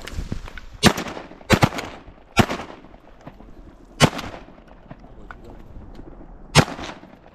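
A volley of shotgun shots from duck hunters' guns, about six in all over several seconds, two of them almost on top of each other early on, each a sharp blast with a short echo.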